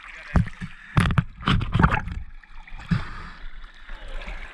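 Sea water sloshing and splashing close by at the surface, with a cluster of sharp splashes between about one and two seconds in and another just before three seconds.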